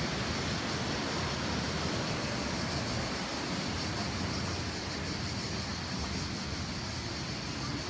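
Rushing water of a cold mountain stream: a steady, even rush.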